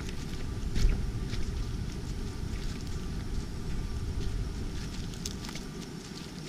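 Steady low rumble of outdoor wind on the camera's microphones, with a few short clicks and knocks, the loudest about a second in.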